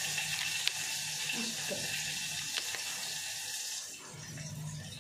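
Food sizzling in a pan on a gas stove: a steady hiss that drops away about four seconds in.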